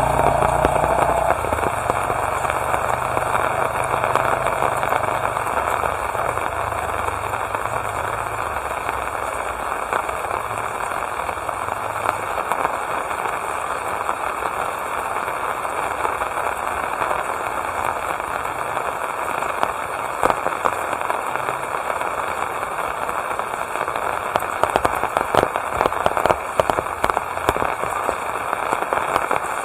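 Steady rain falling, with many sharp taps and drips of drops hitting surfaces, which grow denser near the end. A low rumble underneath fades out over the first ten seconds or so.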